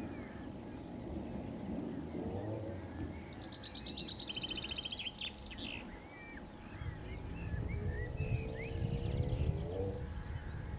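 Songbirds singing: a fast trilled phrase about three seconds in, then scattered short chirps, over a low rumble that swells in the second half with a faint pitched hum rising near the end.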